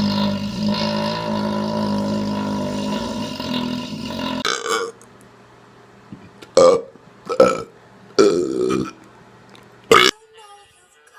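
A man belching on command: one long, drawn-out, pitched belch that ends about four and a half seconds in, followed by several short, separate belches.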